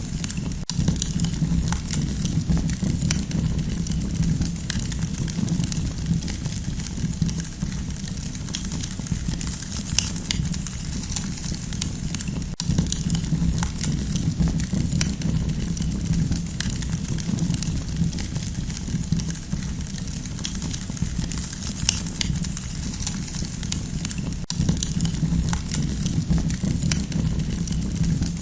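Campfire burning steadily, with frequent small crackles and pops over a low, even rumble of flame, and very brief gaps about every twelve seconds.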